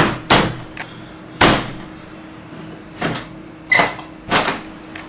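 Fist blows banging on wooden louvered window shutters: about six hard knocks at uneven intervals, as the stuck shutters are pounded to force them open.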